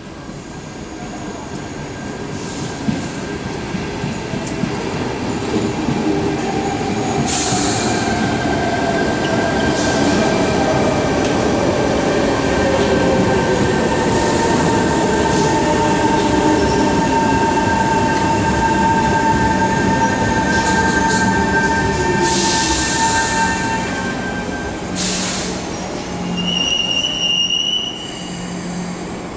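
Electric metro train with GTO traction equipment running in and braking to a stop. Its electric whine falls steadily in pitch as it slows, over steady high tones, with bursts of air hiss and a short high brake squeal near the end.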